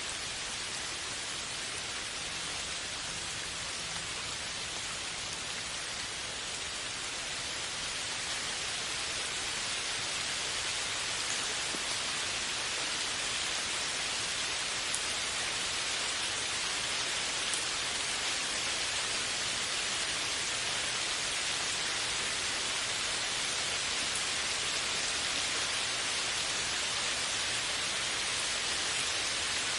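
Steady rain: an even hiss of falling drops, gradually getting a little louder.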